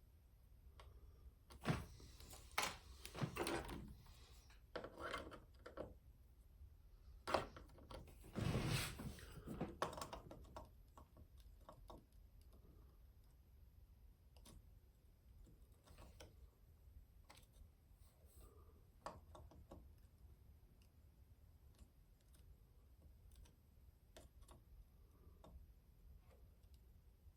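Scattered clicks and knocks of soldering tools being handled and set down on a table. They come in clusters over the first ten seconds or so, then only a few faint ticks.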